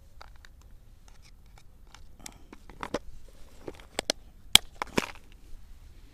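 Clear plastic tackle box being handled: light clicks and rattles as soft lures are picked from its compartments, then sharp plastic clicks as the lid is shut and its latch snapped, the loudest about four and a half and five seconds in.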